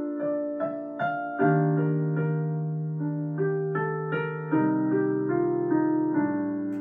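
Digital piano playing slow, gentle music: sustained chords under a simple melody, with a new note or chord struck about every half second, each ringing and fading.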